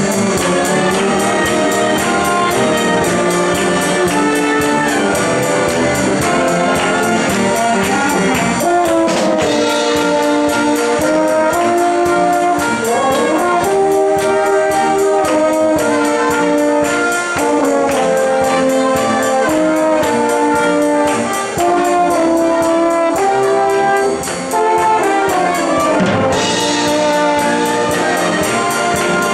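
Live brass band with trumpets and sousaphones playing an upbeat tune, held notes moving in a melody with a few quick rising slides.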